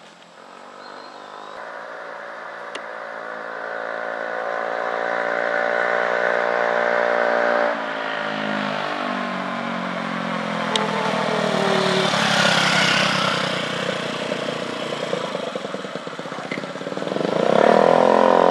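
Honda Ruckus scooter's 49cc four-stroke single-cylinder engine running as it rides toward the listener, growing louder as it comes. Its pitch drops suddenly about eight seconds in, and it is loudest near the end as it pulls up close.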